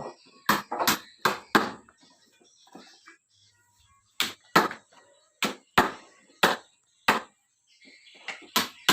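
Hammer blows knocking on wooden window-frame timber as its joints are driven together: four quick knocks, a pause of about two seconds, then about seven more spaced unevenly.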